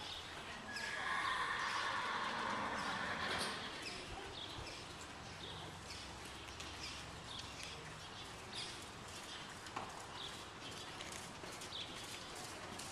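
Hoofbeats of a horse trotting on sand arena footing, a string of soft, light beats. A louder rushing noise rises about a second in and fades after a few seconds.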